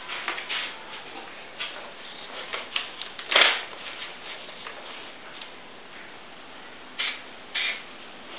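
Sheet of printed paper rustling and crinkling in the hands as it is folded and handled for use as a paint mask, with irregular short crackles; the loudest comes about three and a half seconds in, and two more come near the end.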